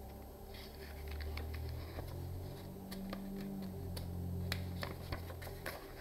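Pages of a paperback picture book being turned and handled: soft paper rustles with light taps and clicks, over a low hum.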